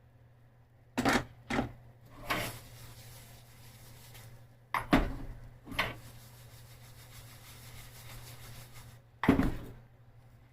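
Kitchen handling sounds: six sharp knocks and scrapes of cookware or utensils, over a faint steady hum.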